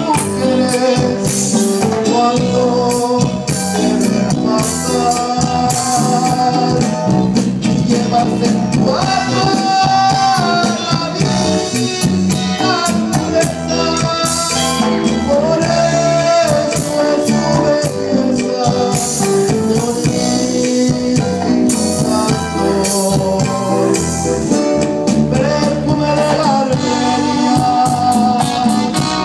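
A band playing Latin music: a held, gliding melody line over steady percussion, without a break.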